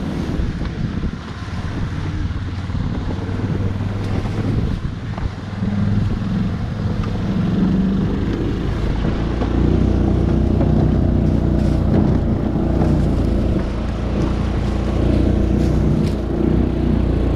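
Golf cart driving over leaf-covered forest ground, its motor running with a low steady hum that grows louder and steadier about halfway through, with a few light knocks as it goes over sticks.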